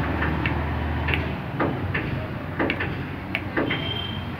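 About a dozen short, sharp clicks at uneven intervals over a low hum, which stops about a second and a half in.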